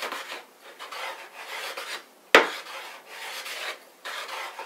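Wood River bench plane taking about half a dozen short strokes along a board, each a rasping hiss as the blade peels off ribbon shavings. A sharp knock a little over two seconds in is the loudest sound.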